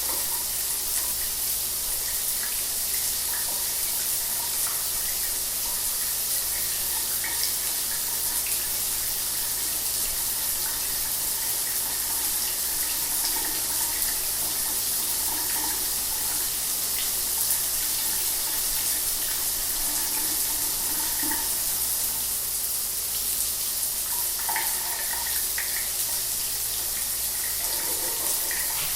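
Shower water running steadily, a continuous hiss of spray with faint splashes and spatters.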